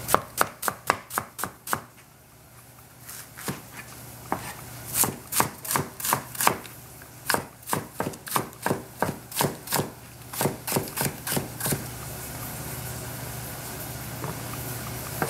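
Chinese cleaver chopping napa cabbage stalks on a plastic cutting board: runs of quick, even strokes, about three a second, broken by short pauses. The chopping stops about twelve seconds in.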